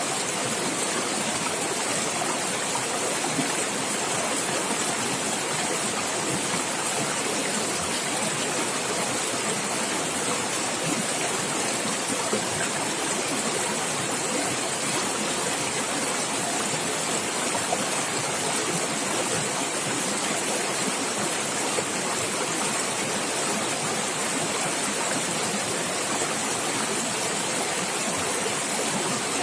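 Water running and gurgling over stones in a natural stream, a steady, even rush with no breaks.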